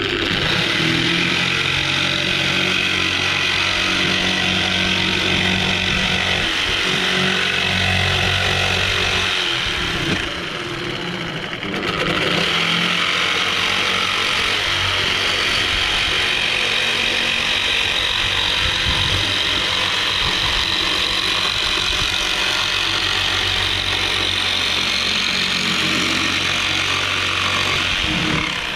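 Corded electric jigsaw cutting a curved profile through a wooden board, the motor running steadily with the blade rasping through the wood. It eases off briefly about ten seconds in, then carries on cutting.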